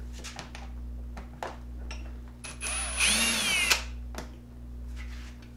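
Cordless drill/driver run briefly, a motor whine of about a second that rises and then falls, backing a Phillips screw out of a generator's plastic front access panel. A few light clicks and knocks of handling come before and after it.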